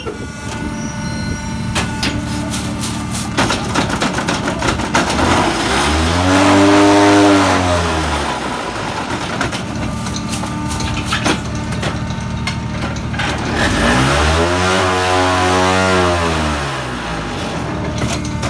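Conmach BlockKing-09MS hydraulic block-making machine running a production cycle: a steady machine hum with clanks and knocks of the mould and press. Twice, a deep hum rises and then falls in pitch over about two to three seconds as the vibrator motors spin up and down to compact the concrete.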